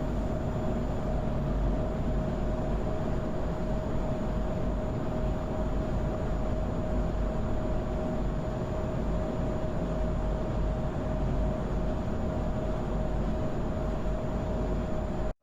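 Steady rumbling noise with one constant mid-pitched hum running through it, like a machine or cabin drone, cutting off abruptly at the end.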